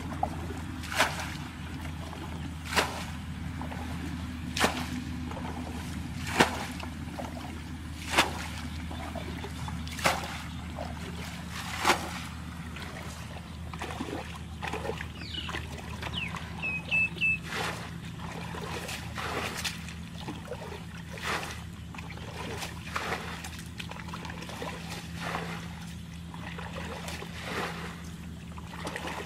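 Muddy water splashing and sloshing as people wade through a shallow pool. The splashes come about every two seconds for the first dozen seconds, then turn softer and more irregular.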